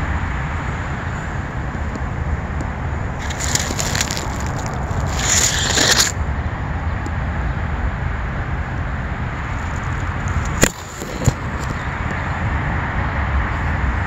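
Steady outdoor noise with a low rumble. About three seconds in, a crunching, rustling noise comes and lasts a few seconds. About ten seconds in there are two sharp clicks, with a brief dip in the noise between them.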